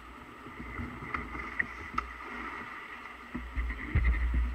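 Water lapping and splashing against a kayak's bow as it moves along a river, with a few small splashes. A low rumble swells near the end.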